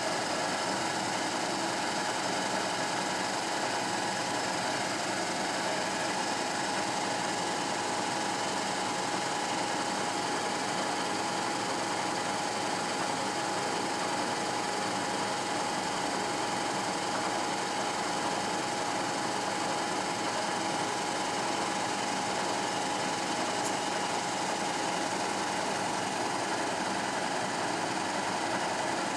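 Willis 1250 Microcut knee-type milling machine running under power: a steady mechanical whir with a steady mid-pitched whine.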